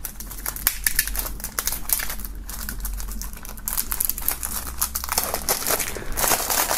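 Plastic shrink-wrap film being peeled and pulled off a CD jewel case: a continuous, irregular crinkling and crackling that gets louder and denser near the end.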